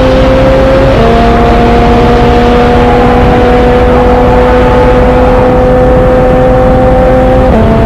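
Train running under power, with a loud rumbling noise and a whine that climbs slowly in pitch and steps down suddenly about a second in and again near the end.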